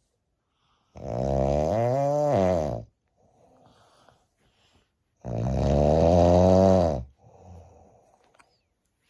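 A person snoring very loudly with a sawing rasp: two long snores of about two seconds each, the pitch rising then falling in each, with a quieter breath after each one.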